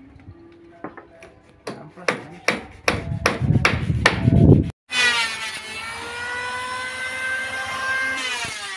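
Hammer blows on the boat's wooden frame, about two or three a second. About five seconds in, after a cut, a handheld electric planer runs with a steady whine as it shaves a wooden plank, its pitch rising briefly near the end.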